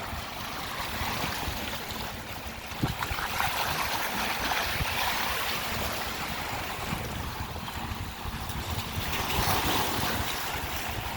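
Wind buffeting the microphone over the steady wash of small lake waves on the shore, the wash swelling twice.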